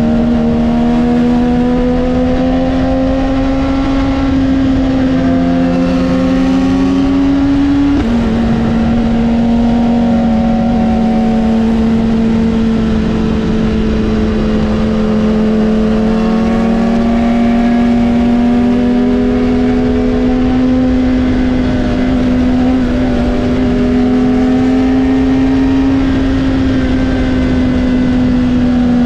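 BMW S1000RR inline-four engine running at steady high revs while riding, its pitch creeping up and then dropping sharply about eight seconds in at an upshift, then rising and easing off gently, over wind rush.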